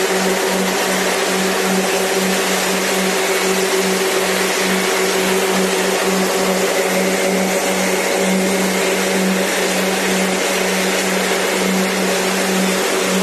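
Peanut-picking machine running steadily under load as peanut vines are forked into it, beating the pods off and shredding the stalks: a loud, even mechanical din with a constant low hum.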